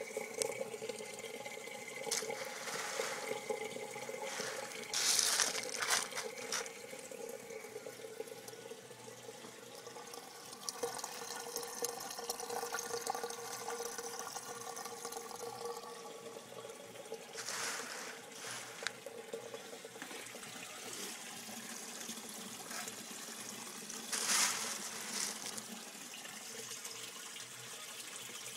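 Water trickling from a pump's return hose into an aquaponics grow bed of expanded clay pebbles, over a steady hum. A few louder gushes come about 5, 17 and 24 seconds in.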